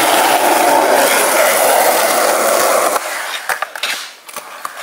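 Skateboard wheels rolling on concrete, a steady loud rumble for about three seconds. After a sudden drop it is quieter, with a few sharp clacks of the board.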